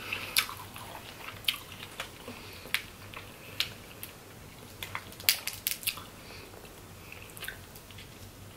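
Close-miked eating of crab legs and shrimp: sharp, irregular clicks and cracks of shell and wet bites, with a quick cluster of them about five to six seconds in.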